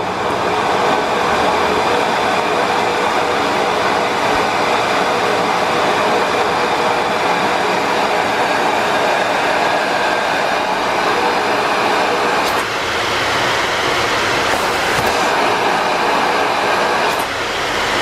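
Miele S8 UniQ canister vacuum cleaner running: a steady rush of motor and airflow, turned up with its '+' power button and growing louder over the first second. The sound dips briefly, with light clicks, about two-thirds of the way through and again near the end.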